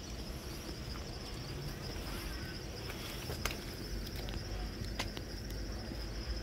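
Swollen river in flood flowing, a steady rushing noise with a low rumble underneath and a thin steady high hiss over it; two faint clicks about three and a half and five seconds in.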